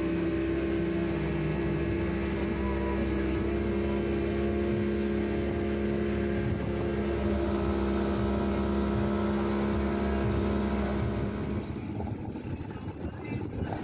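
Speedboat's outboard motor running steadily at speed over the rush of water and spray from the wake. About eleven seconds in, it gives way to a quieter, uneven background sound.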